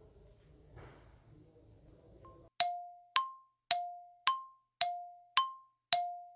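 Countdown timer sound effect: sharp ringing chime strikes, alternating between a lower and a higher note, about two a second. The strikes start a little over two seconds in.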